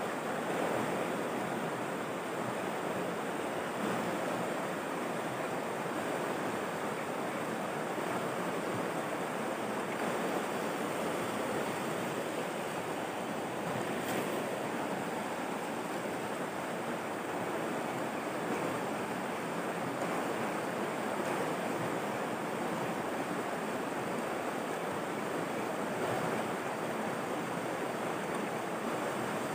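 Steady rushing of river water running over rapids, an even hiss with no changes.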